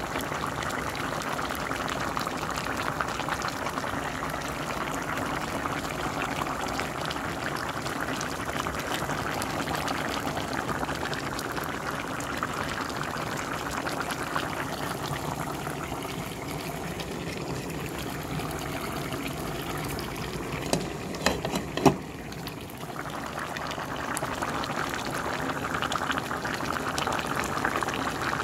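A pot of green beans, potatoes and ham hock simmering, the broth bubbling with a steady crackling fizz. The bubbling eases for a few seconds past the middle, with a few sharp clicks around then, and picks up again near the end.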